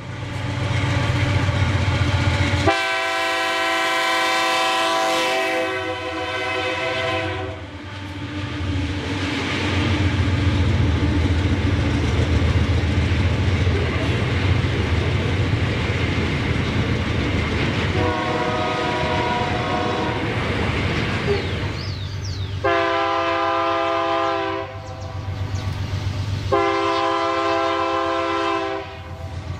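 Diesel freight locomotive sounding its horn in four blasts, the first one long, over the steady rumble of its engine and the train rolling past.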